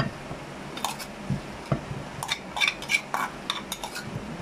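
A utensil clinking and tapping against a pan and plate as buttered boiled potatoes are served out: a run of short, irregular clinks.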